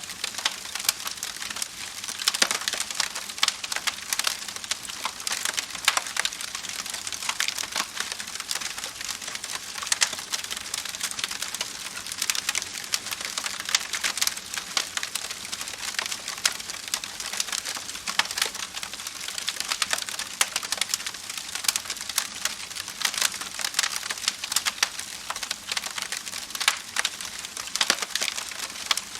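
Wood fire crackling steadily, with a dense run of small irregular pops and snaps over a soft hiss.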